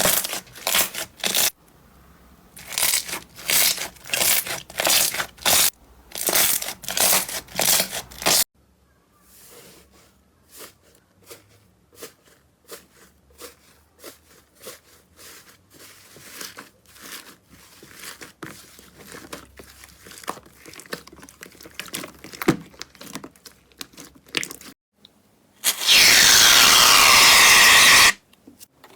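Slime being handled: loud crackling, crunching squeezes at about two a second, then after a cut many quieter sticky clicks and pops as it is poked and pressed. Near the end a loud steady hiss lasts about two seconds.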